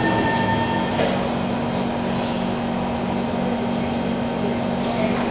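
Steady interior hum of a Kawasaki C151 MRT car at Newton station, from its air-conditioning and onboard equipment, with a steady low drone and a faint higher tone that fades about a second in.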